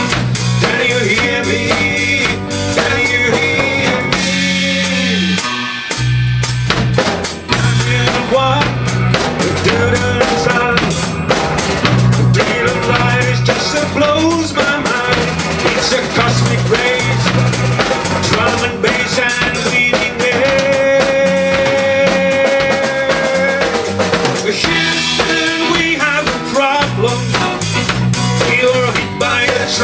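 Three-piece rock band playing live, with electric guitar, electric bass and drum kit. This is an instrumental passage without vocals, driven by the drums, with held, wavering guitar notes.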